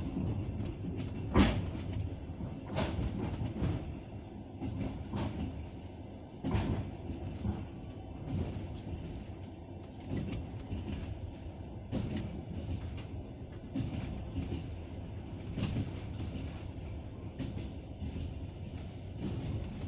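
Passenger train wheels clacking over rail joints, sharp clacks every second or two over a steady running rumble, the loudest about a second and a half in.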